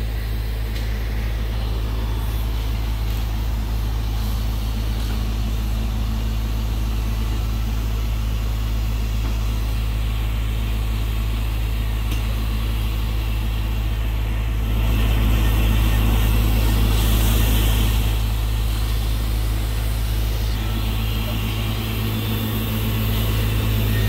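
Steady rumble of traffic on an elevated city expressway, with a constant low machine hum underneath; it swells with a brighter hiss for a few seconds about fifteen seconds in, as a heavier vehicle passes.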